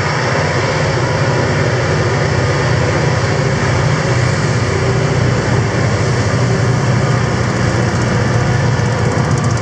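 Diesel-electric locomotives of a loaded grain train passing close by, their engines running steadily with a deep drone and the noise of the train on the rails.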